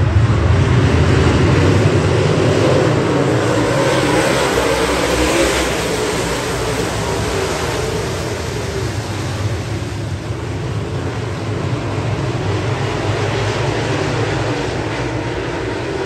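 A pack of dirt-track modified race cars running around the oval, a loud mix of many V8 engines at racing speed. The sound is loudest in the first couple of seconds as the cars pass close, swells again briefly a few seconds in, then slowly fades as the field moves away down the far side.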